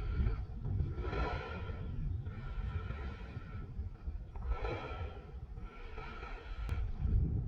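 A person breathing heavily in and out, with a low rumble of wind and movement on the microphone.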